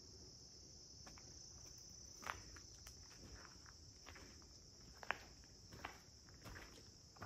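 Faint, steady high-pitched insect chorus, with scattered soft knocks, the sharpest about two and five seconds in.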